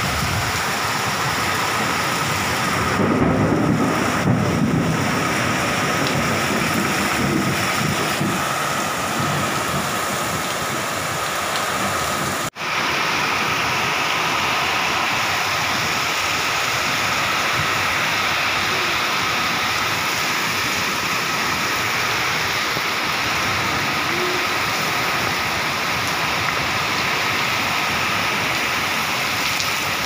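Heavy rain pouring down steadily in a storm, a dense, even hiss, with a louder low rumble about three to five seconds in. The sound cuts out for an instant about twelve seconds in.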